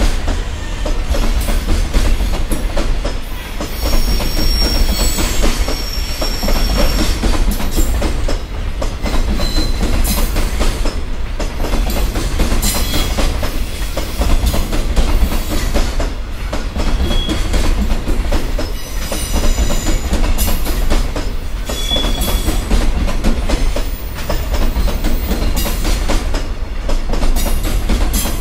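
Loaded Koki container freight wagons rolling past at speed: a heavy rumble with the clickety-clack of wheels over rail joints and a few brief high wheel squeals.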